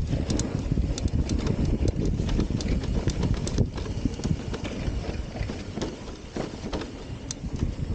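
Trek Rail 5 mountain bike riding fast down a dry dirt trail: a steady rumble of tyres on dirt and wind on the microphone, with a rapid, irregular clatter of rattles and knocks from the bike over the bumps.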